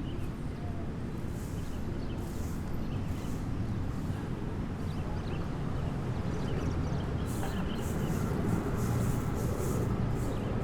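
City street traffic: a steady rumble of passing vehicles, growing a little louder toward the end.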